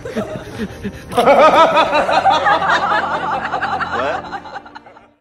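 Laughter: a long run of chuckling that fades out near the end.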